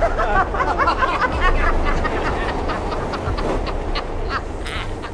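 Two men laughing loudly together, one in an exaggerated, jeering cackle; the laughter is densest in the first couple of seconds.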